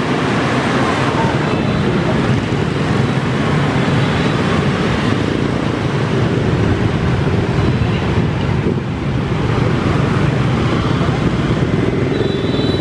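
Busy street traffic: a steady stream of motorbikes passing close by, with wind buffeting the microphone.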